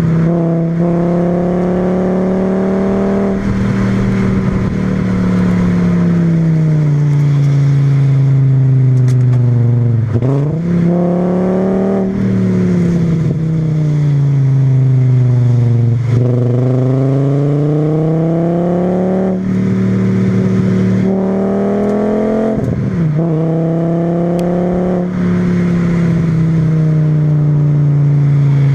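VW VR5 20V five-cylinder engine breathing through a K&N panel filter and a Milltek resonator with a straight-through 2.25-inch exhaust, driven hard. Its note climbs and falls repeatedly, dipping sharply about ten, sixteen and twenty-three seconds in before rising again.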